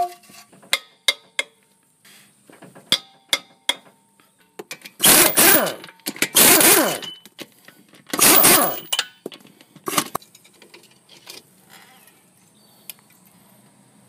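Impact wrench loosening the lug nuts on a pickup truck's wheel, in three loud bursts of about a second each, with a few light clicks and knocks before them.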